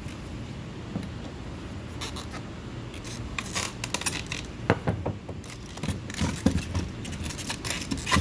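Irregular scraping, clicking and knocking of plastic and metal parts as a Ford fuel pump module and its lock ring are worked into a tight fuel tank opening. It grows busier from about three seconds in, over a low steady hum.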